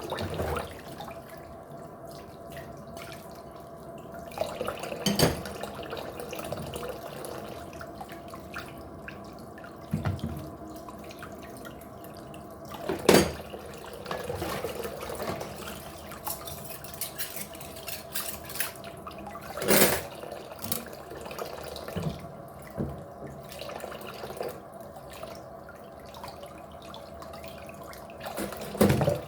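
Water running at a kitchen sink, with several sharp knocks of things being handled.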